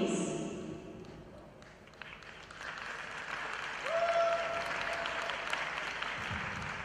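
Arena crowd applauding, the clapping swelling in about two and a half seconds in after a short lull. A brief steady whistle-like tone sounds over it about four seconds in.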